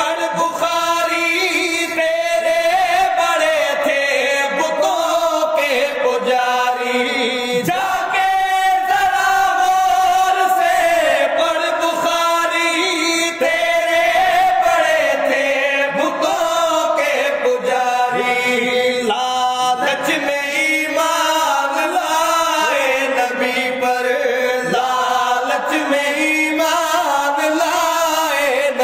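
Several men singing an Urdu devotional chant together, voices in unison on long, bending melodic lines without a break.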